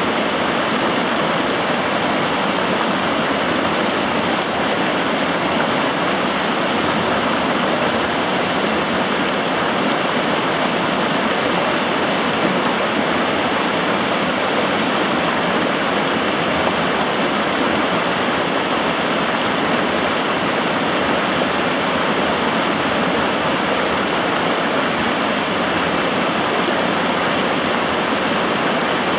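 Firehole River rushing over shallow riffles: a steady, even rush of flowing water.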